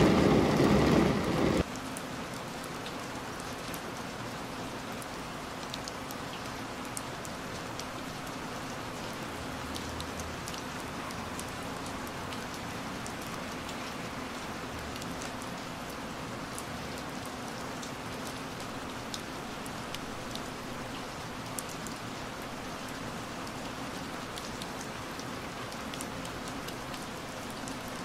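Steady rain on a window pane: an even hiss with scattered faint drop ticks. A louder, deeper rush of rain cuts off abruptly about a second and a half in.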